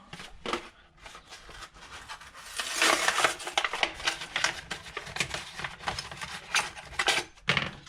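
Plastic Wiremold surface-raceway fittings being handled: rustling with many light clicks and knocks, busiest a few seconds in.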